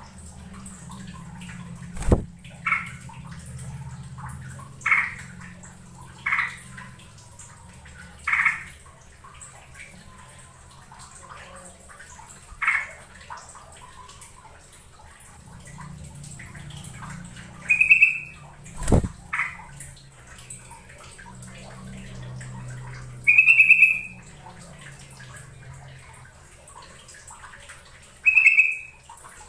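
Yellow-vented bulbul (trucukan) giving short call notes, one every second or few seconds, the last few loudest. A few sharp clicks stand out, the first about two seconds in.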